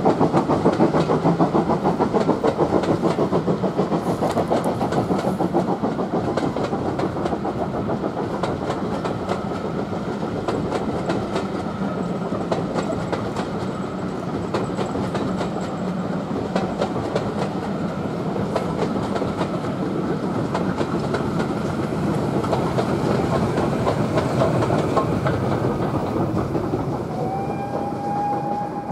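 Heritage railway coaches rolling past behind a steam locomotive, the wheels clicking in a fast steady rhythm over the rail joints. The sound slowly fades as the train draws away.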